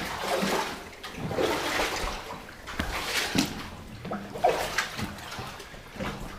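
Feet wading through shallow floodwater, with a splash and slosh at each stride, about one a second.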